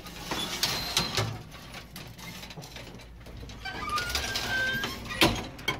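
An old-fashioned elevator with a brass folding gate, squeaking, clicking and rattling as it runs, with a few sharp metal knocks near the end.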